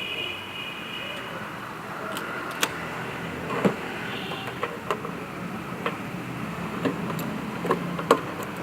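Petrol pump dispenser running as fuel is filled into a motorcycle: a steady hum, a short electronic beep about a second long at the start, and scattered sharp clicks.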